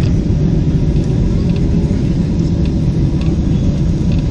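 Steady low rumble of engine and airflow noise inside the cabin of a Boeing 767-300ER on approach with its flaps extended.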